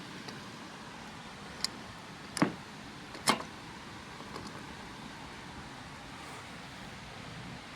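A sharp click, then two short, solid knocks about a second apart, over a steady faint hiss.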